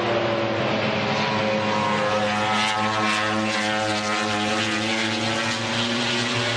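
A MotoGP racing motorcycle engine at high revs, its pitch sliding slowly. It swells loudest about halfway through as the bike passes, then eases off.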